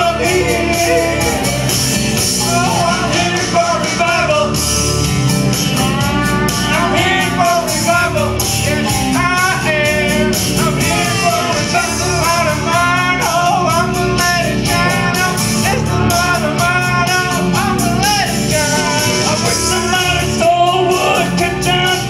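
Music with singing: a sung melody over a full, steady accompaniment.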